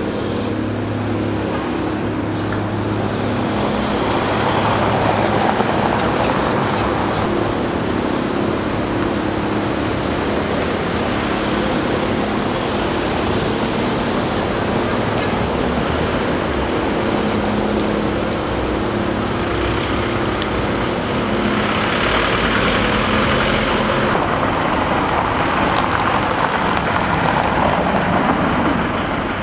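City street traffic: car engines running, with vehicles passing and the noise swelling louder a few times.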